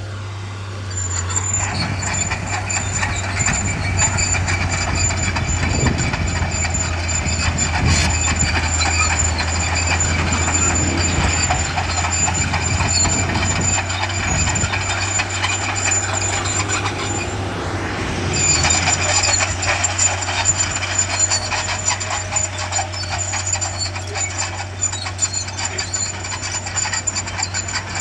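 Bulldozer working dirt: its diesel engine runs steadily under load with a constant high whine and a continuous rattle and clank. About two-thirds through, the whine slides down and drops out for a second or so, then comes back.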